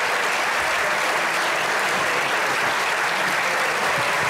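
Audience applauding steadily after the orchestra finishes the piece.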